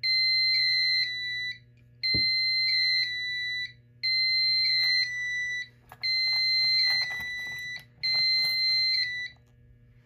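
Fire-Lite fire alarm system's piezo trouble sounder pulsing: a steady high beep about a second and a half long, repeating every two seconds, five times, then it stops near the end. It signals a trouble condition, a NAC 4 fault, from a notification appliance removed from the circuit. A single thump about two seconds in and a few light clicks towards the end.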